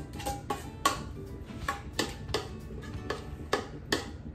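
Spatula scraping and knocking against the inside of a stainless steel stand-mixer bowl while thick cake batter is scraped out: a quick, uneven run of sharp clicks, about three a second, some with a brief metallic ring.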